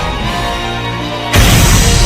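Dramatic music: held tones, then a louder, fuller section cuts in about 1.3 seconds in.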